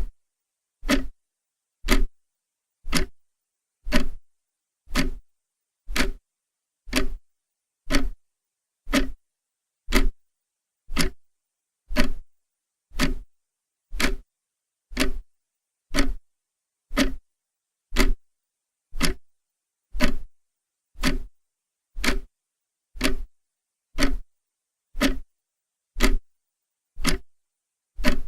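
Clock ticking steadily, one sharp tick each second, with silence between the ticks.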